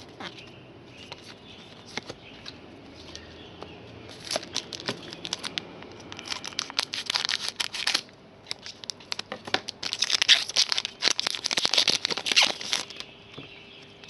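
A plastic trading-card pack wrapper being torn open and crinkled, in two crackling spells, about four seconds in and again about ten seconds in, with quieter handling rustle between.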